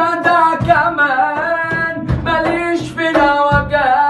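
A singer holding a long, ornamented vocal line without words over instrumental backing, with a drum hitting about every second and a half.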